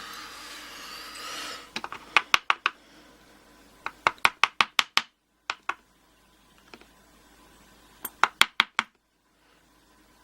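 Rustling handling noise, then three quick runs of sharp taps, several a second, as the disassembled padlock is worked to free its last spring, which is stuck.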